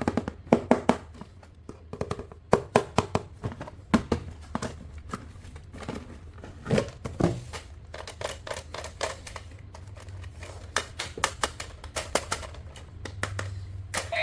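Hands unboxing plastic toy trucks: irregular clicks and taps with crinkling and tearing of the packaging.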